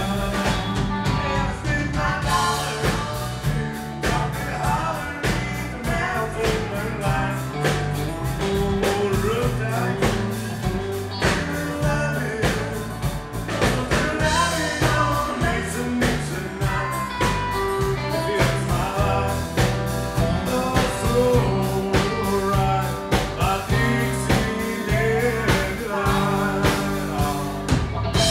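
Live country band playing an up-tempo song, with a drum kit keeping a steady beat under a moving bass line.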